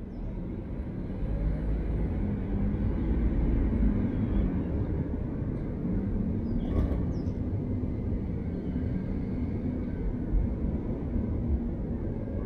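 Steady low rumble of passing vehicle traffic, swelling over the first few seconds, with faint wavering engine tones and a brief sharp sound about seven seconds in.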